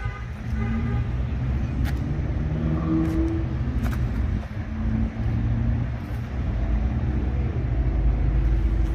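Car engine running steadily at idle, with a few sharp clicks and knocks, and the low hum growing louder near the end.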